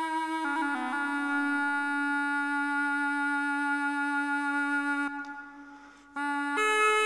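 Kortholt, a capped double-reed wind instrument, holding a long low note after a small step in pitch. The note stops about five seconds in, and after a short pause new long notes come in, two of them layered.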